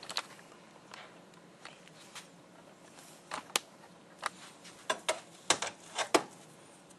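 Scattered light clicks and clinks of a torque wrench and its fittings being handled, about a dozen, coming closer together in the second half.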